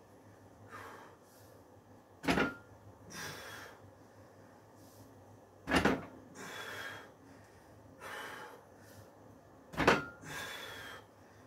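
A barbell loaded with homemade big-wheel weights clanks sharply three times, about every three and a half seconds, with a brief metallic ring, as reps of bent-over rows are done. Between the clanks come hard breaths of effort.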